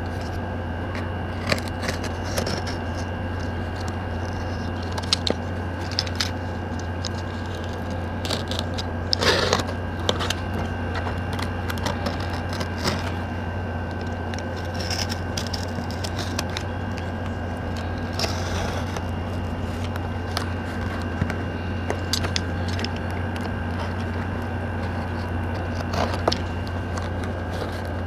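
Box cutter slitting and scraping packing tape on a cardboard box, with scattered scrapes and crackles of the cardboard being handled, the clearest about a third of the way in. A steady low hum runs underneath.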